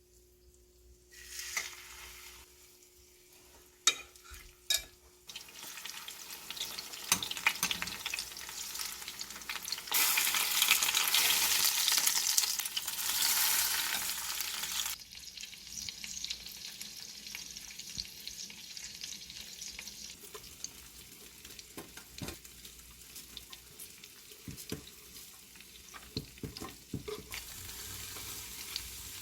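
Food frying in a pan. A few clicks and knocks come first, then sizzling starts about five seconds in, is loudest for several seconds in the middle, and settles to a softer sizzle with occasional taps.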